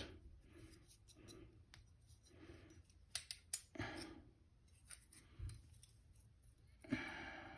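Faint clicks and light taps of a hand plane's metal lever cap being handled while it is checked for flatness, with a brief soft hiss near the end.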